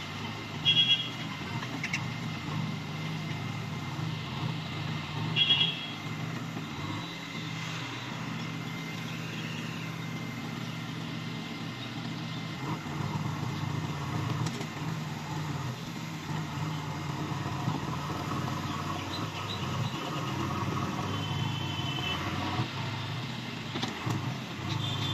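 JCB 3DX Eco backhoe loader's diesel engine running steadily while its backhoe arm digs and swings wet earth. Two brief, loud, high-pitched squeaks cut through, about a second in and again about five seconds in.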